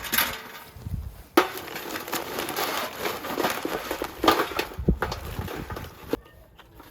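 Handling noises: a rustling, crackling clatter with several sharp knocks, the loudest about a second and a half in.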